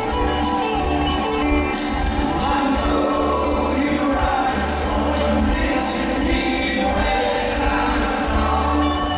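Live rock band playing over a stadium PA, with electric guitars, bass and drums under several voices singing together, heard from among the audience.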